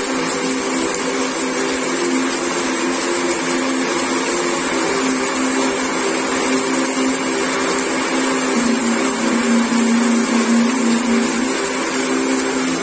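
Steady heavy rain falling on pavement and vegetation, a continuous even hiss. Under it sit low sustained drone notes from a relaxation music track, one of which drops lower about eight and a half seconds in.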